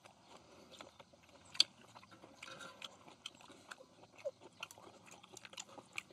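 People chewing and eating, with scattered small clicks and one sharp click about a second and a half in.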